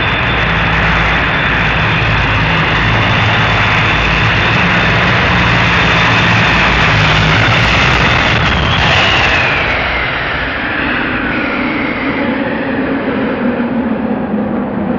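Competition pulling tractor running at full power: a loud, steady engine noise with a high whine over a deep hum. About nine seconds in the power drops and the whine falls in pitch as the engine winds down.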